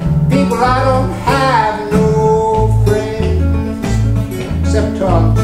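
Steel-string acoustic guitar played in a steady rhythm, low bass notes repeating under held chords.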